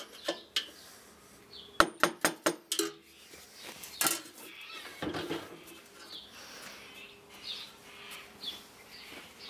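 Screwdriver tip jabbed through a lathe's metal mounting holes into a wooden plank to mark screw positions: sharp metallic clicks, a quick run of five about two seconds in and a louder knock about four seconds in, then quieter scraping and handling.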